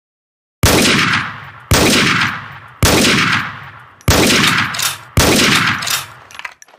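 Steyr SSG 69 PII sniper rifle firing five shots about a second apart, each a sharp crack trailing off in a long echoing tail. A run of light metallic clicks follows near the end.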